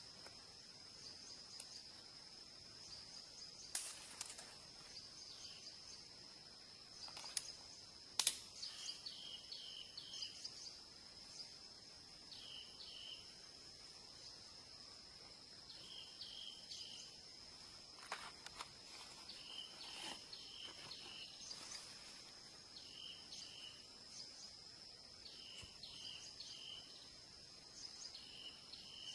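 Faint forest ambience: a steady high insect drone, with short chirps in groups of two to four every few seconds. A few sharp knocks or clicks stand out, the loudest about eight seconds in.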